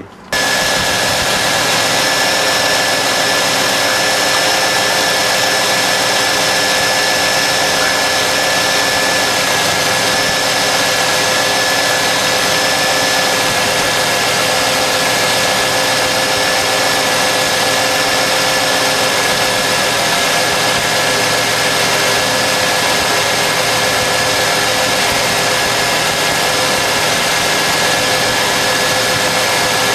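1995 Cadillac Fleetwood's V8 engine idling steadily, heard up close in the engine bay, with a steady whine over the running noise. The engine is being run after a coolant refill to work trapped air out of the cooling system.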